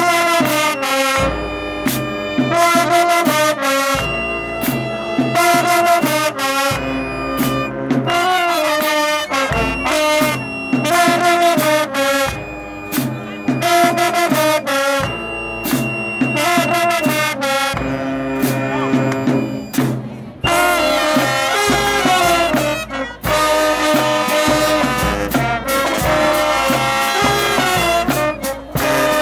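High school marching band playing a brass-heavy tune: sousaphones, trumpets and mellophones with clarinets and piccolo, driven by drum hits and crash cymbals, which thicken the sound over the last third.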